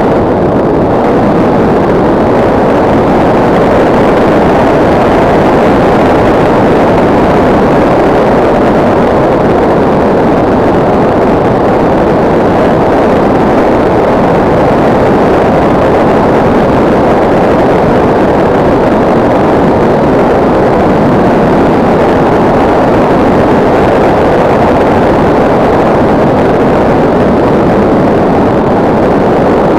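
Steady, loud rush of air over an onboard camera on an RC glider in flight, with no clear motor pitch.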